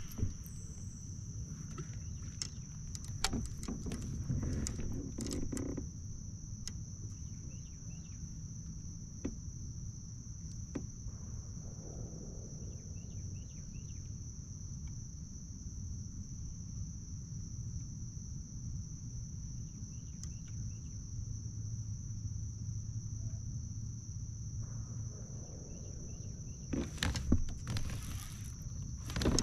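A steady high-pitched insect drone over a low rumble, with scattered light clicks and a few faint chirps. Near the end come a few louder knocks and rustles.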